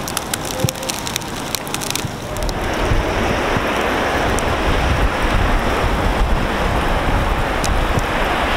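Sleet pellets ticking sharply and irregularly. About two seconds in, this gives way to a louder, steady hiss of heavy sleet, with wind rumbling on the microphone.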